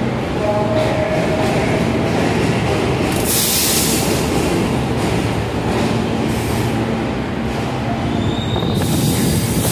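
R68A subway train rolling slowly past the platform with a steady rumble of wheels on rail. Twice, about three seconds in and again near the end, there is a burst of high-pitched screeching wheel noise.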